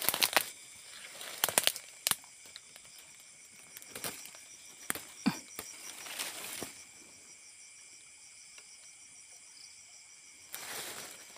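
Dry twigs and leaves crackling and rustling in irregular bursts as a person pushes through undergrowth and grabs into the brush by hand. Underneath, insects chirr steadily in a high, finely pulsed chorus.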